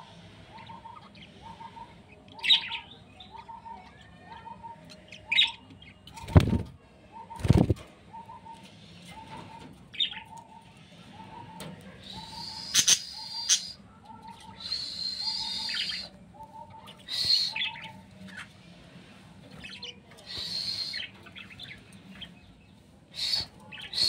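Budgerigars chirping and warbling in a breeding cage, with a soft short note repeating about three times every two seconds through most of it. Two heavy knocks come about six and seven and a half seconds in.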